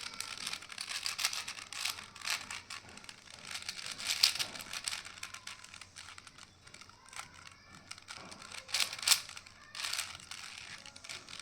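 Plastic 4x4 Rubik's cube being turned by hand, its layers clicking and clacking in irregular bursts, with a few louder snaps about four and nine seconds in.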